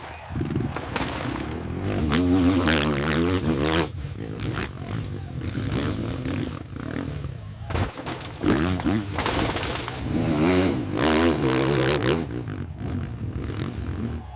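Dirt-bike engine revving up and down unevenly, with clattering knocks and scraping throughout.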